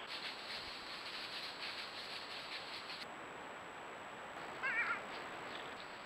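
Forest trail-camera ambience with soft crackling and rustling, then a single short wavering animal call about four and a half seconds in, over a faint steady high-pitched whine.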